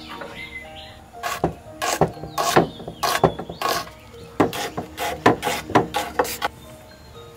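Large kitchen knife chopping a red onion on a wooden cutting board: a series of sharp chops against the board, starting about a second in and coming quicker in the second half. Faint background music runs underneath.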